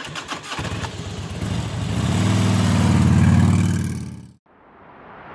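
Motorcycle engine sound effect: a few clicks as it starts, then the engine running and swelling in level before cutting off about four seconds in. A rising whoosh follows near the end.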